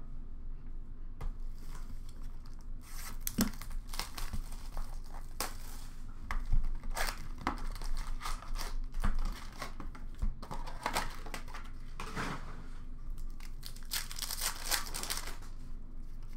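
Trading card pack wrappers crinkling and tearing as hockey card packs are ripped open and the cards handled, in irregular rustling bursts.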